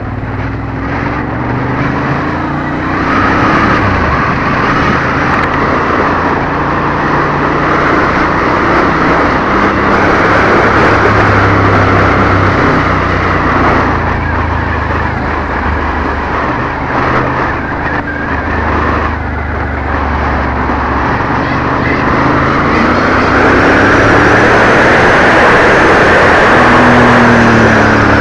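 Ducati Monster's V-twin engine running under way, its pitch rising and falling as the rider changes speed. Heavy wind rush on a helmet-mounted microphone partly covers it.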